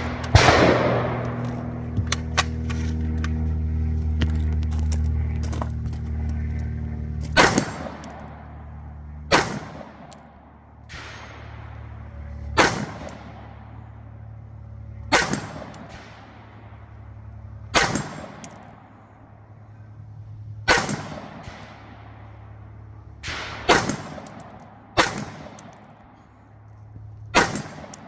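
Rifle shots fired one at a time, about two to three seconds apart, at a steel spinner target, each shot followed by a metallic clang that rings and fades. A steady low hum runs under the first seven seconds or so.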